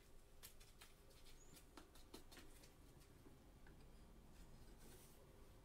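Near silence with faint scattered clicks and taps: a trading card in a rigid plastic top loader being handled by gloved hands.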